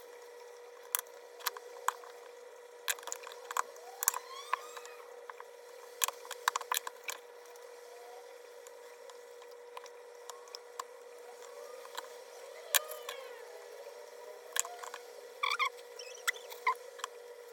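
Kitchen food-preparation handling sounds: scattered sharp clicks and taps with soft squelching and a few short squeaks, over a faint steady hum.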